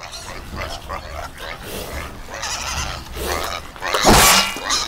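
Pigs and piglets grunting and calling, with the loudest cry about four seconds in.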